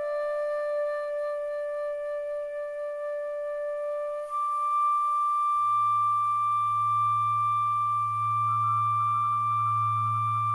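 Slow, calm instrumental background music of long held notes. The notes shift to a new chord about four seconds in, and a low drone joins soon after.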